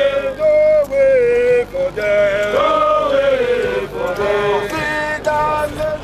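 Marching troops singing a marching song: a chanted tune with held notes.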